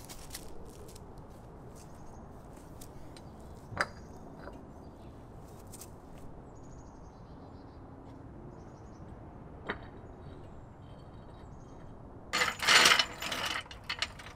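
Quiet outdoor background with two single sharp clicks, then, about twelve seconds in, a loud second-long cluster of scuffing and clacking as a person gets down and lies on the concrete under the car among hand tools.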